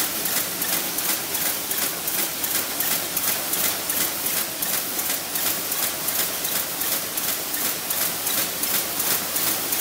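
Cone-forming packaging machine running, its mechanism cycling in a fast, even rhythm of clattering with a steady hiss over it.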